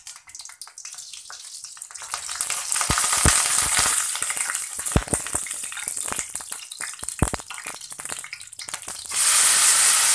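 Whole spices (cinnamon stick, star anise and small pods) frying in hot oil in an aluminium wok: a steady sizzle with scattered sharp pops. Near the end a blended onion and garlic paste is poured in and the sizzle jumps to a loud hiss.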